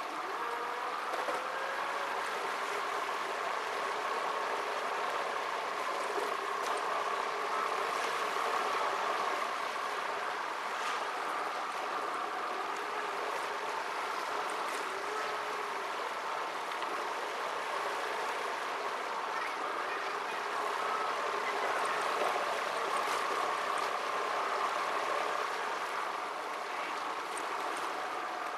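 Car interior driving noise, engine and road noise from a moving car, played back at four times speed so that it becomes a steady, high hiss with a faint wavering hum.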